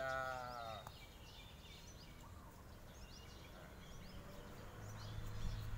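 A drawn-out voice tone, slightly falling, lasts just under a second at the start. After it, small birds chirp faintly, in short high chirps scattered throughout. A low steady hum comes in near the end.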